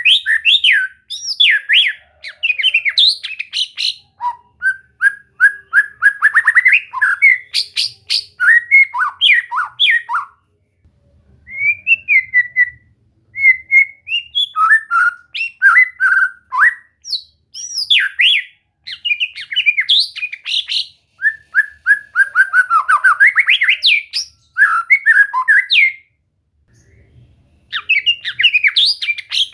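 White-rumped shama singing: fast runs of varied whistles, trills and sharp chattering phrases, with short breaks about ten seconds in and near the end.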